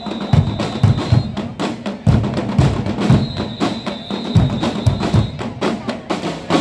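Percussion ensemble of snare and bass drums playing a driving rhythm, with deep bass-drum hits. A high steady tone is held for about two seconds twice, once at the start and again around the middle.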